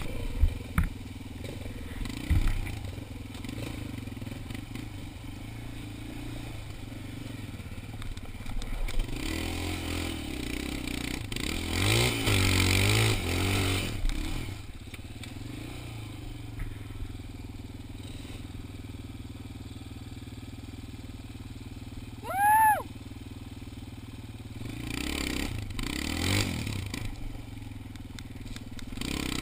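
Small ATV engine running over a rough dirt trail, surging in pitch as it is revved around a third of the way in and again near the end, with knocks and rattles from the bumps. About three quarters through comes one brief, loud, high-pitched squeal that rises and falls.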